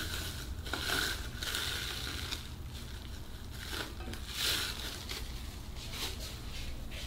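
Plastic cling wrap crinkling and rustling as it is peeled off risen bread dough, with the loudest crinkles about a second in and again past four seconds.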